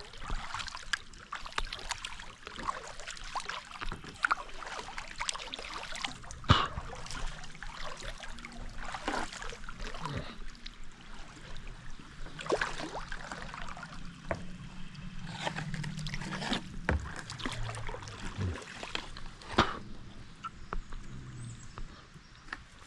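Kayak paddling on a creek: the paddle blades dipping and pulling through the water, with irregular splashes and dripping water.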